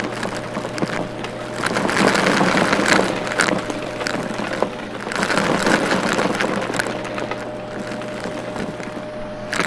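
Vacuum cleaner running with a steady hum as it sucks up crunchy debris from a shag rug. Dense crackling and clicking swells with the strokes, loudest about two seconds in and again about five seconds in.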